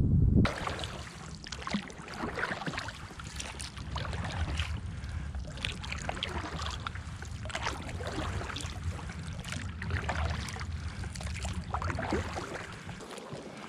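A paddle dipping and pulling through shallow marsh water beside an inflatable boat, with repeated small splashes and drips over a steady low rumble.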